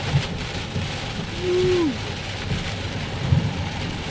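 Heavy rain falling steadily, with a brief hum about a second and a half in that drops in pitch as it ends.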